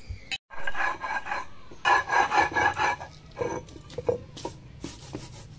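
Stone roller grinding dry-roasted cumin on a stone slab (sil batta): two long gritty scraping passes, then several shorter, quieter rubs of stone and grit.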